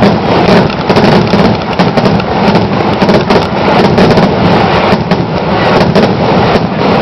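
Fireworks going off in a dense, rapid barrage of overlapping booms and crackles, typical of a display's finale.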